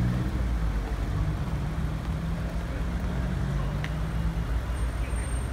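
Street traffic noise with a vehicle engine idling, a low steady hum that drops away about four and a half seconds in.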